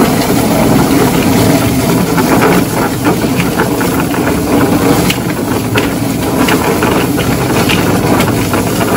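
Stainless-steel tub-style chicken plucker running with two scalded birds tumbling inside, a steady motor-and-drum churn with occasional soft thuds, while a garden hose spray nozzle hisses water onto the birds.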